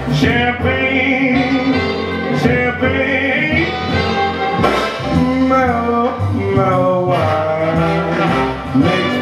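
Music playing: a melodic lead line over bass and accompaniment, continuous and fairly loud.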